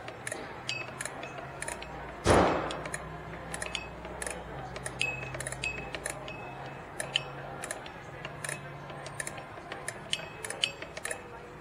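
Rear drum brake's star-wheel adjuster being turned with an adjusting tool, clicking notch by notch at irregular intervals as the shoes are spread out. One loud bang about two seconds in stands out over the clicking.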